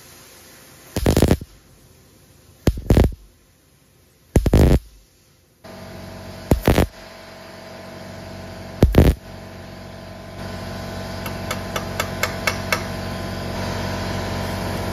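MIG welder striking five short zaps about two seconds apart, building weld up on a broken bolt stub in a cast-iron exhaust manifold so the bolt can be gripped and pulled out. A steady hum sets in after the third zap and runs on, and a quick run of light clicks comes about ten seconds in.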